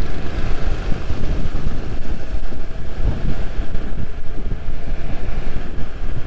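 Wind buffeting the microphone of a moving rider, a loud, unsteady rumble, with road traffic noise underneath.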